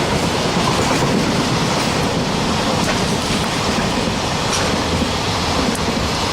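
Freight train rolling steadily past at close range, its wagons rumbling on the rails, with a couple of brief high squeaks from the wheels in the second half.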